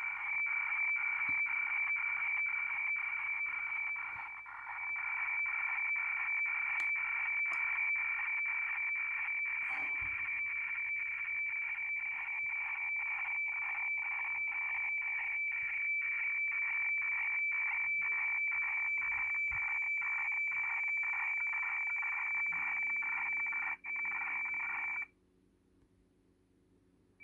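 HF radiofax transmission received on an Airspy HF+ Discovery software-defined radio and played through speakers: a steady high tone over a band of hiss, pulsing about twice a second as the fax lines come in. About 25 seconds in the audio cuts off abruptly, leaving only a faint low hum.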